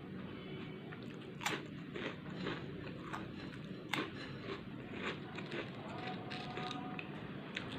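Close-miked chewing of crunchy chips: irregular crisp crunches with wet mouth sounds between them, two sharper, louder bites about one and a half and four seconds in.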